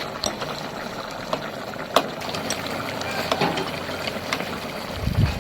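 Pork-offal hotpot broth bubbling steadily at the boil, with a few sharp clinks, the loudest about two seconds in.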